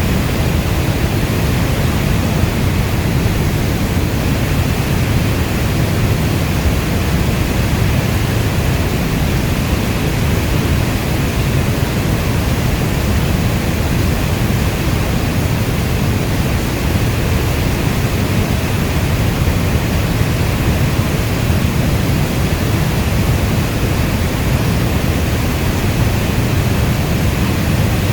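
Steady heavy rainfall, an even rush of noise weighted to the low end like brown noise, with no single drops, thunder or other events standing out.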